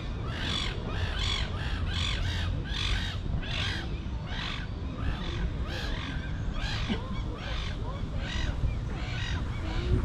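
A bird calling over and over in a steady run of short, harsh notes, about two a second.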